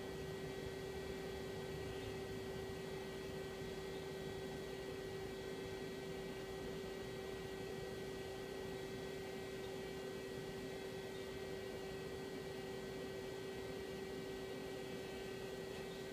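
Steady hum from a powered-up Daewoo Puma 12L-B CNC lathe: one strong steady tone with several fainter higher tones over a low rumble, unchanging throughout.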